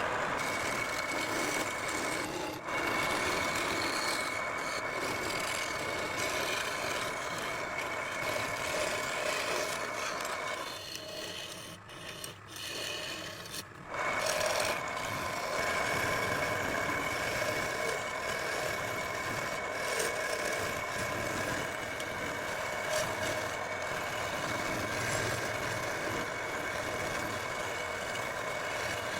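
Teak turning on a wood lathe with a tool cutting against it: a rasping hiss under a steady high whine. It drops away for about three seconds near the middle, then starts again sharply.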